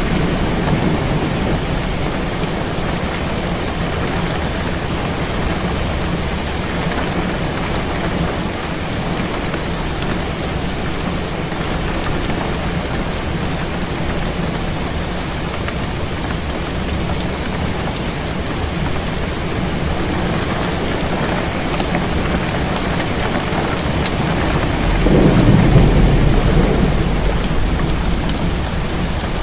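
Heavy rain falling steadily on a window, with a low roll of thunder swelling near the end.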